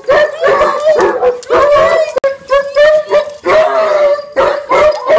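Dogs howling and whining in excited greeting: pitched, overlapping calls a few times a second with hardly a pause.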